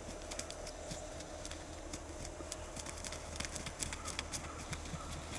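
A freshly shot Osceola wild turkey flapping its wings while held up, heard as scattered sharp clicks and light knocks that come thicker about three and a half seconds in, over a steady low rumble.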